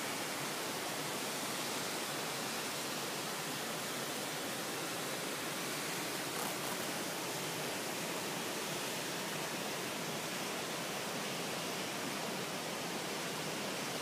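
Waterfall, a steady rushing hiss of falling and flowing water that stays even throughout.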